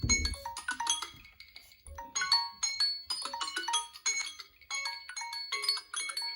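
Smartphone alarm tone playing: a quick melodic run of bright, marimba- and bell-like notes, one after another, with a low thump at the very start.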